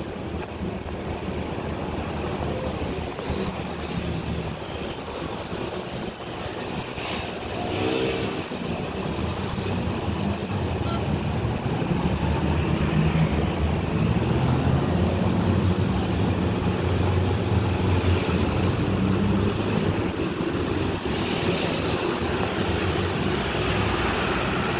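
Road traffic noise: a steady low rumble of passing vehicles that grows louder about halfway through.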